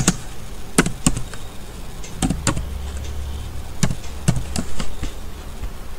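Computer keyboard keys clicking as text is typed: about ten separate key presses at an uneven pace.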